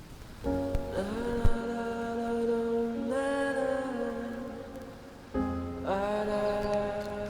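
Background music of long held chords that come in about half a second in, fade away near the five-second mark and swell back in a moment later.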